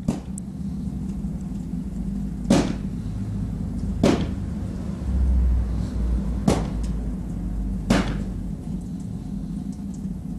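Five sharp knocks at uneven gaps of one and a half to two and a half seconds, over a steady low hum and rumble that swells briefly about halfway through.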